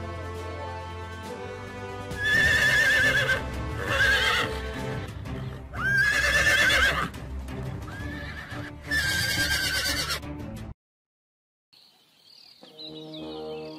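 Wild horses whinnying, four loud wavering high-pitched calls from horses fighting, over background music. Near the end the sound drops out for a moment and only the music comes back.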